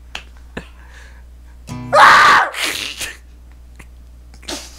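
A person's loud vocal outburst: a short voiced 'ah' running straight into a loud, noisy, sneeze-like blast about two seconds in, with a smaller burst near the end. Low steady hum underneath.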